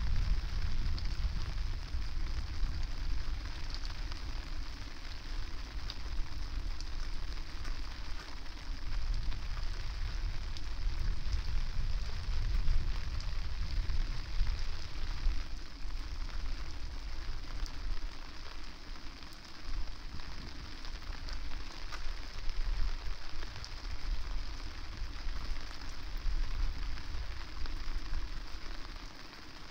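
Steady rain falling, with fine patter of drops, while gusts of wind buffet the microphone in an uneven low rumble that rises and eases.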